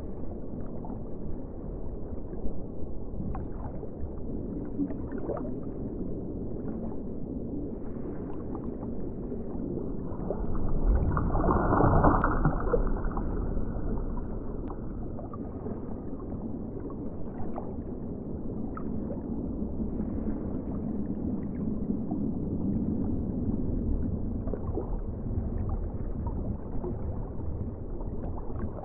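Underwater ocean ambience: a muffled, low wash of moving water with scattered faint clicks. It swells louder for a couple of seconds about midway, then settles back.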